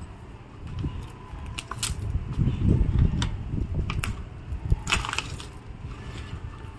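Plastic courier mailer bag crackling and rustling as it is handled and pulled off a small boxed product, with a few sharper crackles over a low rumble.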